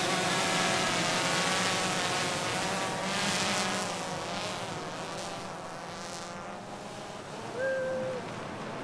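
Large quadcopter drone's propellers buzzing as it flies away carrying a fishing line and bait, the pitch wavering and the sound fading as it climbs. A short steady tone sounds near the end.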